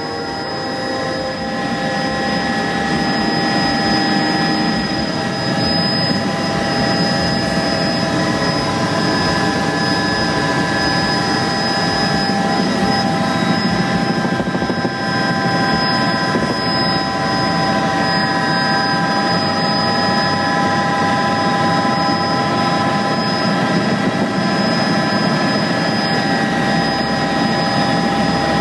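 Bell 206 helicopter in cruise flight, heard from inside the cabin: a steady whine of several high tones from the turbine and transmission over the broad rushing noise of rotor and airflow, growing a little louder in the first few seconds.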